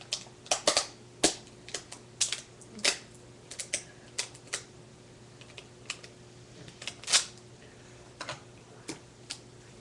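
A string of irregular light clicks and taps, roughly two a second, with a sharper click about a second in and another near the seven-second mark, from small objects being handled at a desk.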